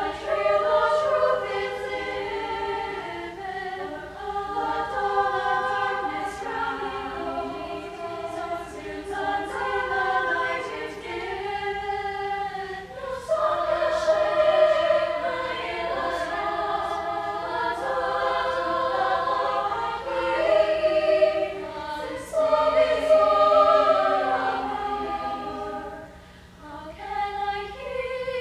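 A choir of mostly young women's voices singing in parts, in phrases that swell and fall back, with a brief quieter passage near the end.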